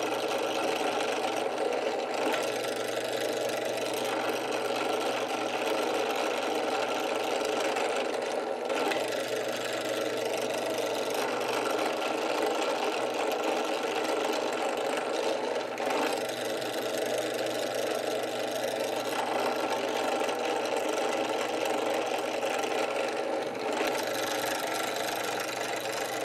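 Benchtop drill press motor running steadily while a small bit drills holes into the edge of a guitar fingerboard.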